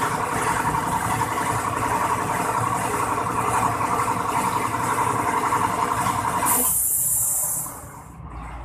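Piston air compressor running steadily, then shutting off about six and a half seconds in, followed by a short sharp hiss of the unloader valve venting as the tank reaches its cut-off pressure.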